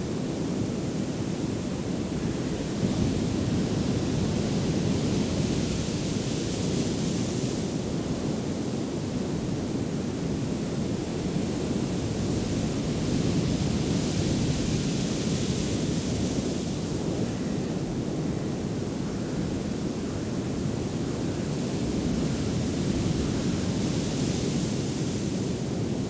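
Heavy ocean surf breaking on a beach: a continuous rushing wash, with no music, that swells and eases every several seconds as waves break.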